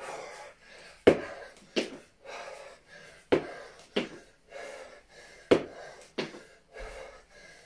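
A man breathing hard, with heavy breaths on each kettlebell repetition, and two sharp knocks per rep, a pair about every two seconds.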